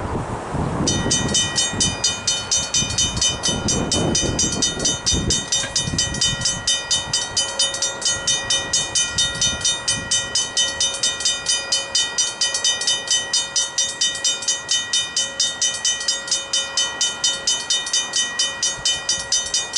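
Griswold mechanical level-crossing bells start ringing about a second in: a rapid, even striking of the gong, several strokes a second, that keeps on steadily. The ringing means the crossing's warning has been triggered by an approaching train.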